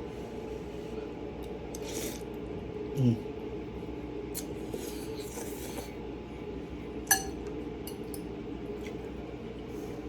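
Eating sounds: a utensil clinking and scraping against a bowl of noodles, with one sharper clink about seven seconds in and a short low hum from the eater about three seconds in, over a steady low background hum.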